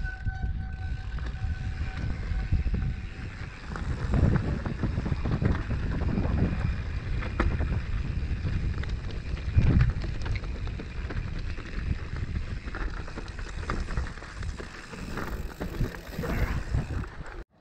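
Mountain bike riding over loose, rocky dirt: tyre rumble and wind buffeting the helmet-mounted microphone, with frequent short knocks and rattles from the bike over the rocks.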